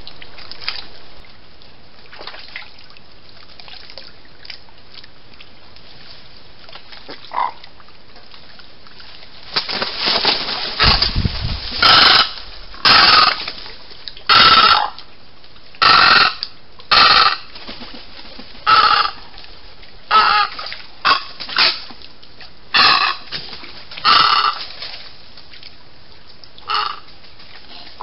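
Wading birds, white ibises and egrets, calling loudly in a run of short calls about one a second, starting about ten seconds in after a quieter stretch.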